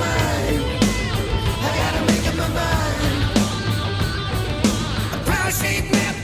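Hard rock music from a full band: drums keeping a steady beat under electric guitars, with a voice singing.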